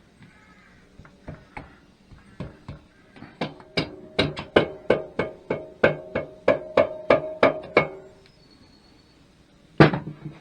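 Repeated tapping on a BSA A50 cylinder head to knock it down onto the barrels and copper head gasket: a few scattered taps, then a quick steady run of about four taps a second with a ringing metallic note, and one louder knock near the end.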